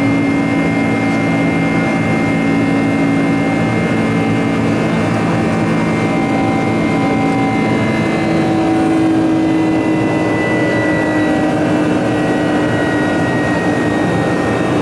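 Boeing 747-400 jet engines heard from inside the cabin during the climb: a steady, loud rush of engine noise with several held whining tones. About eight seconds in, some tones shift slightly, one low tone rising and a higher one sliding down.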